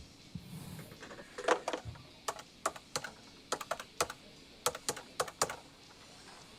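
Typing on a computer keyboard: a run of about a dozen irregular key clicks, starting about a second and a half in and stopping about a second before the end.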